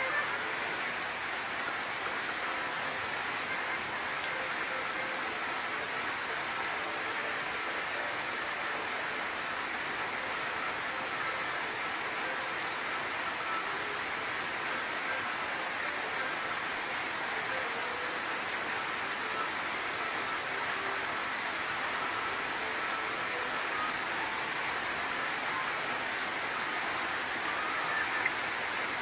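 Steady, even hiss like rain falling, with a few faint ticks.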